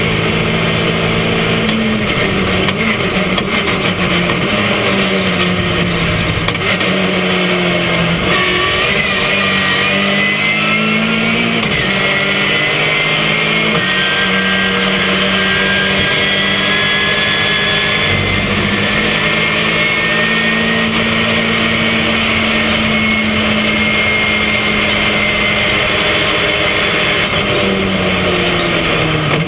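Ginetta GT5 race car's engine heard from inside the cockpit, running hard at high revs. Its pitch holds steady for long stretches, then falls and climbs again several times through the lap, with a thin whine rising and falling above it.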